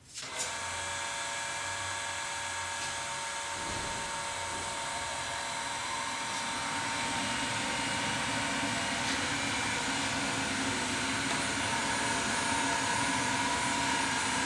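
Kellenberger 125/600U cylindrical grinder switched on and running: a steady motor whine with several held tones. It starts suddenly right at the beginning and grows a little louder about halfway through.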